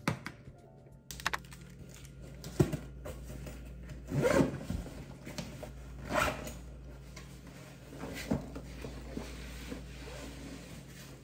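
Cloth tote bag being handled and packed: fabric rustling and rubbing in several short bursts over a steady low hum.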